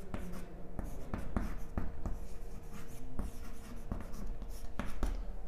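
Chalk writing on a blackboard: irregular taps and short scratches as the chalk strokes out letters.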